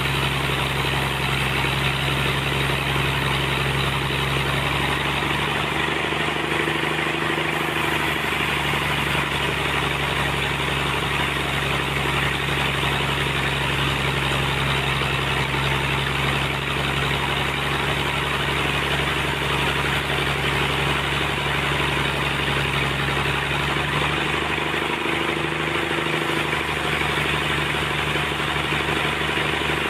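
Sawmill engine running steadily, a constant mechanical drone whose tone briefly shifts twice.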